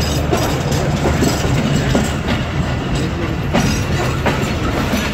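Passenger train wheels clacking over rail joints as the coaches roll along, an uneven series of sharp clacks over a steady low rumble and hum. Heard through an open coach door or window.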